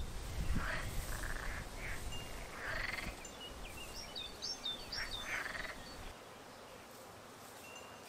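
Birds chirping over a low wind rumble on the microphone, with the soft rustle of a cloth blanket being shaken out and spread on grass; the rumble falls away about six seconds in.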